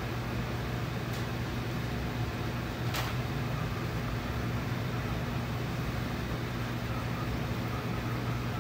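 Room air conditioner running with a steady hum, with one short click about three seconds in.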